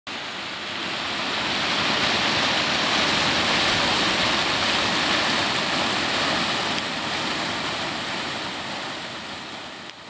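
Rushing water of a waterfall spilling into a creek pool: a steady wash that swells over the first couple of seconds, then slowly fades toward the end.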